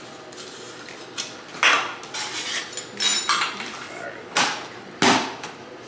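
Kitchen pans and utensils clattering, with about four sharp clinks and knocks spread across a few seconds.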